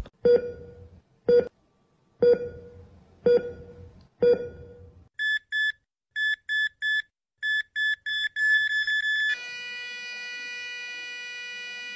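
Five heavy thuds, one a second, then a heart-monitor beep that comes faster and faster until it turns into a steady unbroken flatline tone, the sign of the heart stopping.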